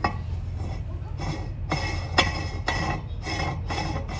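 Mounting plate being spun by hand onto the threaded top of a metal candy-machine pole: a series of short scraping, clicking strokes about two to three a second as it turns on the threads, over a steady low hum.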